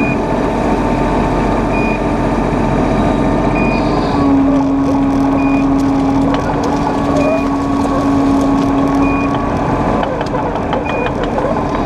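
Mini excavator's diesel engine and hydraulics running steadily under load, the hum growing stronger about four seconds in. A short warning beep sounds about every two seconds.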